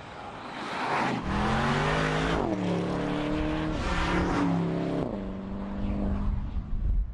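Porsche Panamera Turbo's twin-turbo V8 accelerating hard as the car drives by, growing louder as it approaches, its pitch climbing and dropping back at several quick upshifts before it holds steady near the end.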